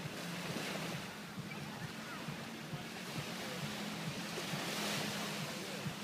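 Small waves washing onto a sandy shore, a steady surf hiss that swells briefly about half a second in and again, more strongly, about five seconds in.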